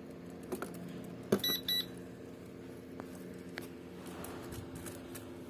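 A click, then two short electronic beeps from the S9S drone set about a second and a half in, the kind of confirmation beeps given during its gyro calibration.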